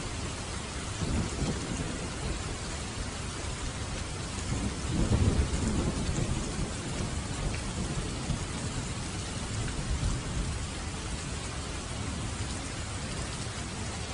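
Steady heavy rain hissing, with low rolling thunder that swells about five seconds in and again briefly near ten seconds.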